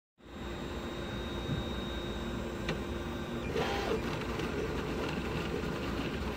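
FDM 3D printer running while it prints a plastic battery holder: its stepper motors whir as the print head travels, over the steady hum of its cooling fan. The motor tones shift briefly about three and a half seconds in.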